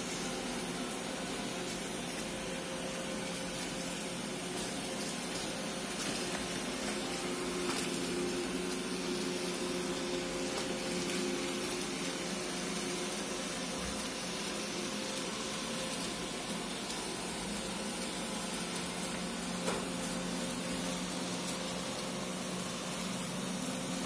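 An iRobot Roomba e5 and an Aldi robot vacuum running together, giving a steady whir of suction fans and brushes over a low, even hum, with a few faint clicks.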